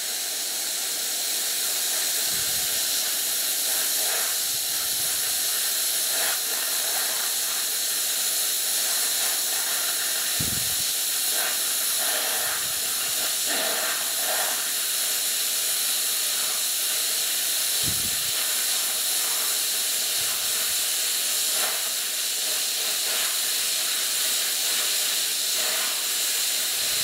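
ToolMania Cut-60 air plasma cutter cutting through 11 mm steel at 50 amps with about 5 bar of air: the arc and air jet make a steady, loud hiss. A few brief low thumps come at intervals.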